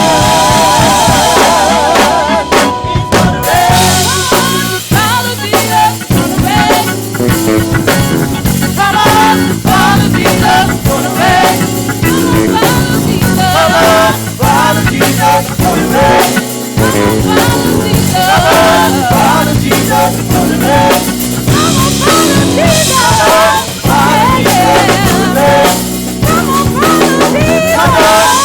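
Live gospel praise band playing: a drum kit drives the groove with snare, bass drum and cymbals, under singing and wavering pitched lines from voices or keyboards.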